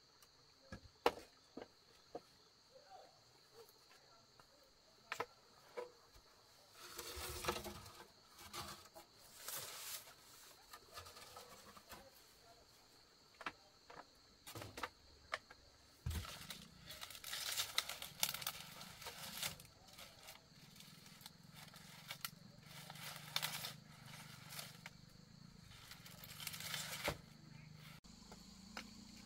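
Scattered clicks and knocks with several bursts of rustling and crackling, the sounds of handwork with dry material. Insects chirr steadily behind it, and a low hum joins about halfway.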